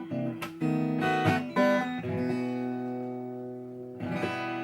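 Acoustic guitar playing the closing chords of a song: a few strummed chords, then one chord left ringing for about two seconds, and a last strum near the end.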